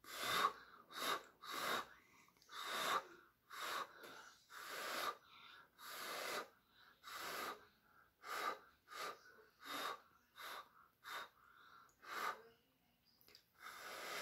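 A person blowing hard through the mouth in a run of short puffs, about one to two a second, with quick breaths between, pushing a puddle of poured acrylic paint outward into a bloom.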